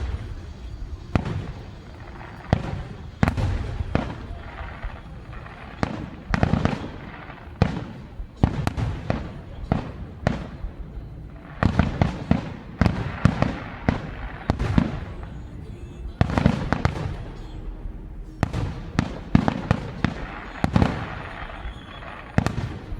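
Aerial fireworks exploding in rapid, irregular volleys, each sharp bang followed by a low rumbling echo, with thicker barrages about halfway through and again near the end.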